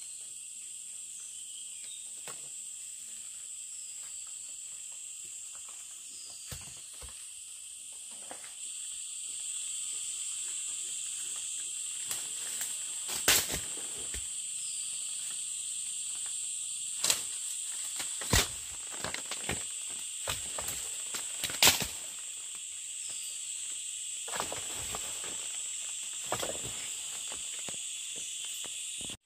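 Steady, high-pitched insect chorus that gets louder about a third of the way in, with scattered sharp knocks and clicks over it, the loudest several in the middle stretch.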